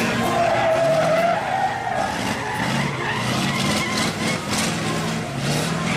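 Mercedes-Benz race truck's diesel engine revving up and down as the truck spins doughnuts, its rear tyres skidding and squealing on wet tarmac.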